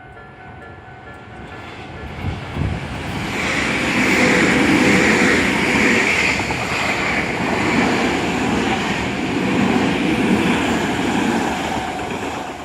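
Tobu Railway electric train passing over a level crossing. The sound builds from about two seconds in to a loud, steady rumble and rattle of wheels on rail, with a brighter high ring for a few seconds near the middle, and eases off near the end. The crossing's warning bell rings in pulses at the start before the train drowns it out.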